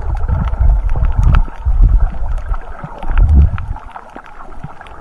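Water sloshing and surging around a submerged camera while snorkelling over coral reef: low rumbling surges about once a second that die down near the end, over a steady hiss with scattered sharp clicks.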